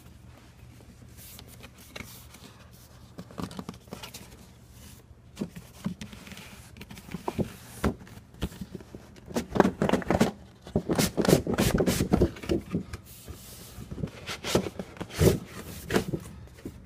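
A lamp's retail box being opened by hand: irregular scrapes, rustles and knocks of packaging being handled and pulled apart, busiest a little past the middle.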